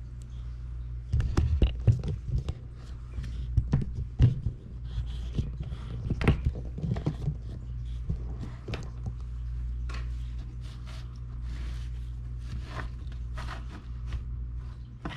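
Scattered knocks, clicks and scrapes of objects being handled, most of them in the first half, over a steady low hum.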